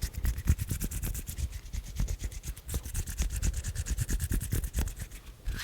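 Hands rubbing quickly and close to the microphone, a fast rhythmic run of short scratchy strokes at about ten a second.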